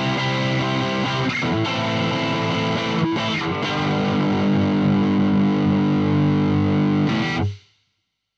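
Washburn WIN14 electric guitar played through a Boss OS-2 Overdrive/Distortion pedal into a Blackstar HT-5 valve amp, close-miked: distorted chords changing a few times, then one chord held for about four seconds before it is cut off sharply.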